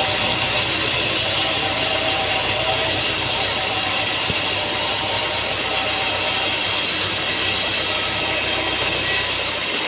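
Sawmill machinery running steadily, a continuous mechanical drone with a low hum and hiss, changing abruptly near the end.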